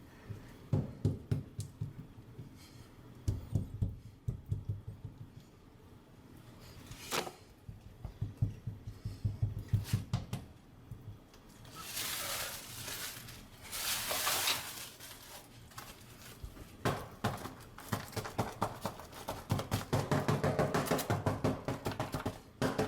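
Small backsplash tiles being handled and pressed into place on the wall, with many quick knocks and taps in clusters and two short stretches of scraping noise near the middle.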